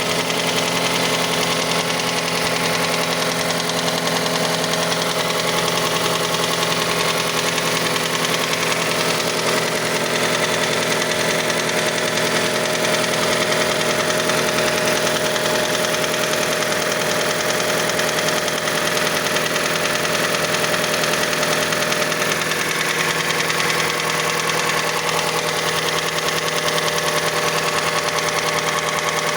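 Mazda CX-5 engine running at a steady idle with a rapid, even knock. The knock lasts until the engine warms to about 70 degrees, and its cause is unknown; the owner suspects the variable valve timing mechanism.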